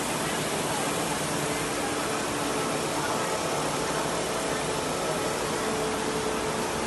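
Steady running noise of factory machinery: an even hiss with a few faint steady tones, unchanging throughout.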